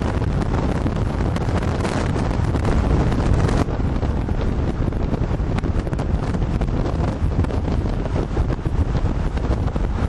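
Wind buffeting a camcorder microphone: a loud, steady rush, heaviest in the low end, dipping slightly in level about three and a half seconds in.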